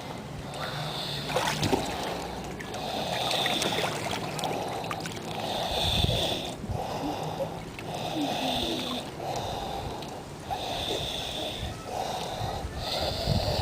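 Snoring in a steady rhythm, about one breath every two and a half seconds.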